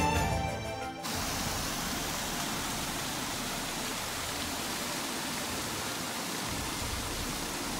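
Steady rushing hiss of flowing water, even and unchanging, after background music fades out about a second in.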